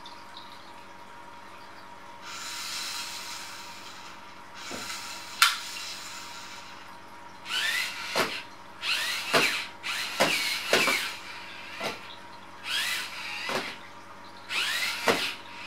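Small electric motors of a cat-teaser robot whirring in a series of short bursts, each with a rising and falling whine, after a sharp click.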